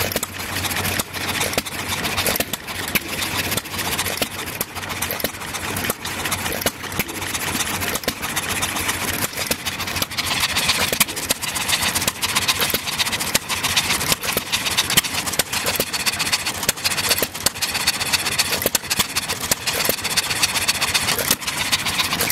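Several John Deere single-cylinder hit-and-miss engines running together, giving a dense, uneven clatter of firing pops and clicks several times a second.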